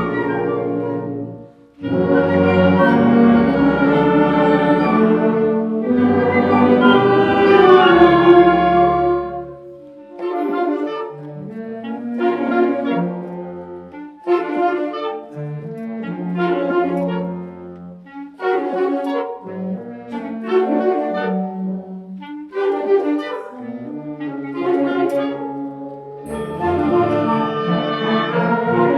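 High school concert band of brass and woodwinds playing full, sustained chords. After a short break about a second and a half in, a quieter passage of short, separate chords follows, and the full band comes back near the end.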